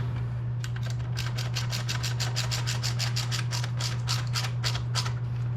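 Ratchet wrench clicking in a fast, even rhythm, about five or six clicks a second, as a stock exhaust bolt is run in, over a steady low hum.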